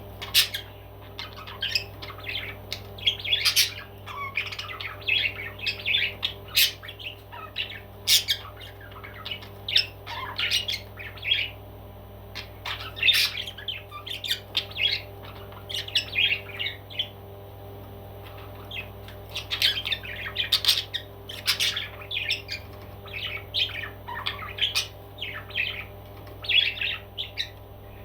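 A parrot squawking and chattering in rapid short, harsh calls, with a brief lull a little past the middle, over a steady low hum.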